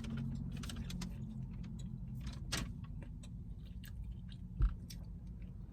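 Fried chicken being chewed close to the microphone: scattered crisp crackles and clicks over a low steady hum, with one dull low thump near the end.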